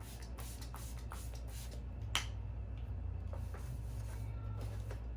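Packaging being handled during an unboxing: a run of short rustles and clicks, with one sharp click about two seconds in, then fewer, softer clicks, over a low steady hum.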